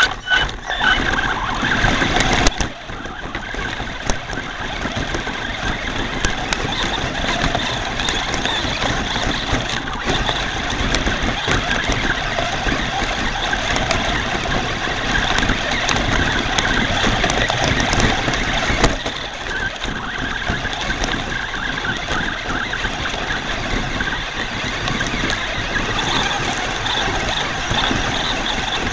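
Traxxas Slash radio-controlled truck climbing a rocky hillside, heard from a camera mounted on the truck. Its drivetrain whines steadily while the tyres crunch and clatter over loose rocks and gravel.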